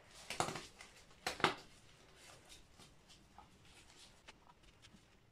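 Plastic screw cap being twisted off a bottle of part B of a two-part epoxy resin, with two short scraping clicks in the first second and a half, then faint handling ticks.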